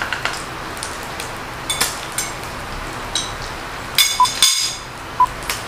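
Pork belly sizzling on an electric grill, with chopsticks clicking and clinking against the grill pan. About four seconds in, short high beeps begin, about one a second.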